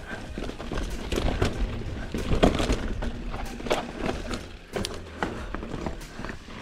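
Mountain bike clattering over rock and dirt trail: irregular knocks and rattles from tyres, chain and frame, the loudest about two and a half seconds in, over a low wind rumble on the microphone.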